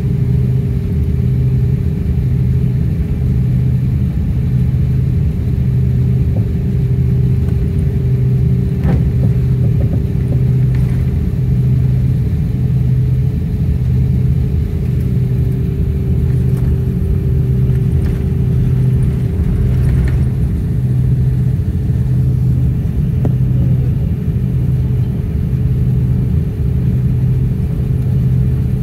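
Airliner cabin noise while taxiing, heard from inside the cabin: the jet engines' steady low drone with a slow, even throb about once a second and a steady hum above it.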